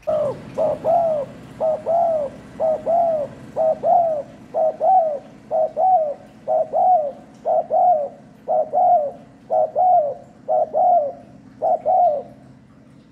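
Spotted dove cooing in a quick, even series of about a dozen paired coos, roughly one pair a second, which stops about a second before the end. This is a decoy call of the kind used to lure wild doves.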